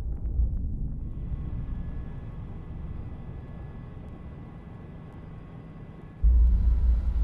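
A van driving up at low speed, its engine and tyres giving a soft steady hiss with a few faint humming tones. About six seconds in, a sudden loud low rumble takes over.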